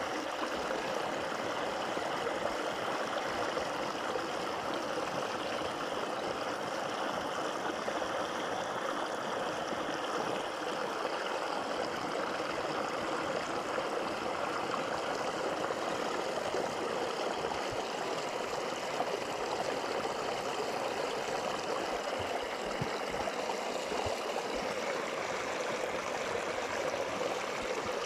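Shallow stream water spilling over a low rock ledge close to the microphone: a steady rush and splash of running water.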